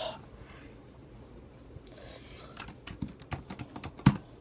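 Typing on a computer keyboard: irregular keystrokes start about halfway through, with one louder knock near the end.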